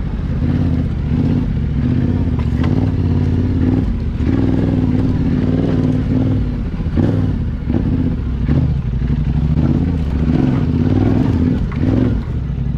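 Yamaha Ténéré adventure motorcycle engine running at low, fairly steady revs with small rises and falls of the throttle, riding slowly over a rocky trail. Scattered short clunks and clatter from the tyres and suspension hitting rocks are heard several times.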